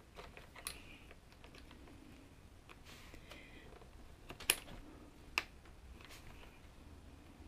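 A few quiet clicks and taps of small metal and plastic parts being handled as an aluminium tie rod is fitted to an RC truck's steering hub. The two sharpest clicks come about a second apart, a little past the middle.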